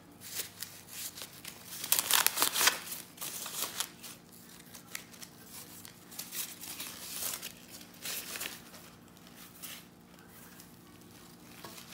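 Dry, papery popcorn husks rustling and crackling as they are peeled back from the ears by hand, in irregular bursts that are loudest about two seconds in and thin out near the end.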